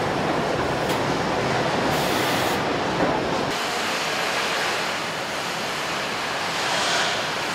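Steady rushing din of a truck assembly hall, a continuous roar of machinery and air. About three and a half seconds in, it abruptly turns lighter and hissier.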